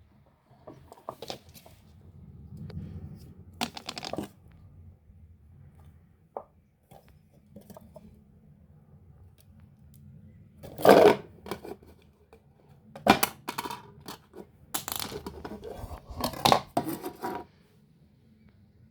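Hands working with materials and small parts: irregular scrapes, rustles and knocks. The loudest comes about 11 seconds in, and a busy run of them follows from about 13 to 17 seconds.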